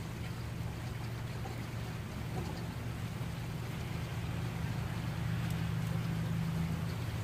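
Heavy rain falling steadily, with a steady low hum underneath.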